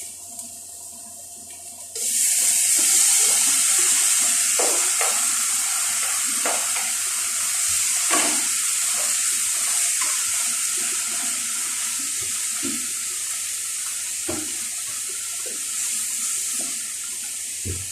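Chicken pieces dropped into hot coconut oil in a pan: a loud sizzle starts suddenly about two seconds in and carries on, easing slowly as it cooks. Scattered knocks and scrapes of a utensil against the pan sound through it.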